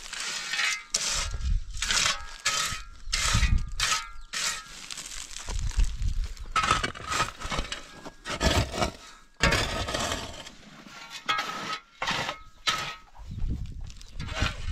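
Irregular clattering: a run of knocks, crunches and clinks, some leaving a short metallic ring.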